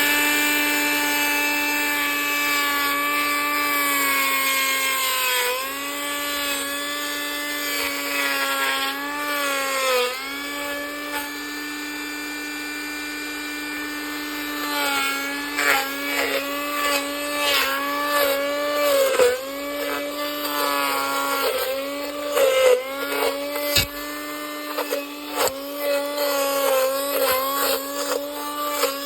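Low-priced blender motor running with a steady whine, its pitch dipping briefly now and then as it bogs down on chunks of carrot and orange. In the second half, pieces knock and rattle against the jar.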